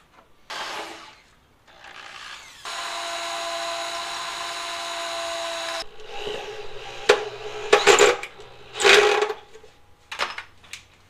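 Cordless drill boring into an aluminium plate: a couple of short bursts, then the motor running steadily for about three seconds. After it stops there are several sharp metal knocks and clanks.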